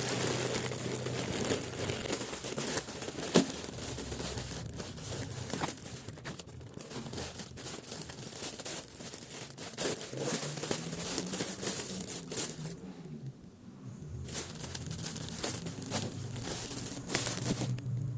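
Crinkling and rustling with many small crackles and a sharp click about three seconds in, over a low steady hum.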